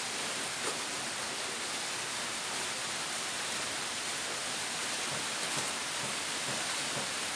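Steady rain falling, heard as an even hiss that holds level throughout.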